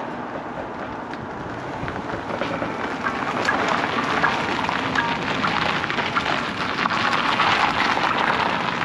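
A BMW M240i coupé rolling slowly up to the camera over loose gravel, its tyres crunching and crackling on the stones, getting louder as it nears and pulls up.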